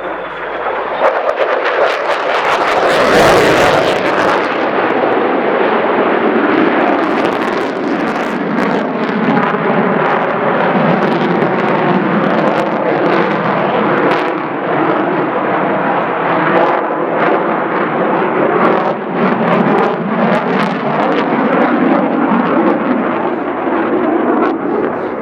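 Lockheed Martin F-35A Lightning II's Pratt & Whitney F135 afterburning turbofan passing in a flying display. Loudest about three seconds in, then staying loud with a rough crackle.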